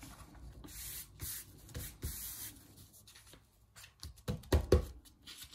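Hands folding a sheet of construction paper over wet paint and rubbing it flat, a soft papery rustle, pressing the paint onto the other half for a mirror print. A few short dull thumps about four and a half seconds in.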